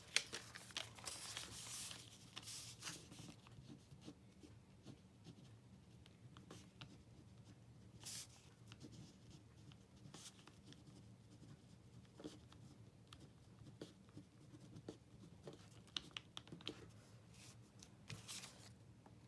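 Faint handling noises: rustling for the first couple of seconds, then scattered light clicks and taps, over a low steady room hum.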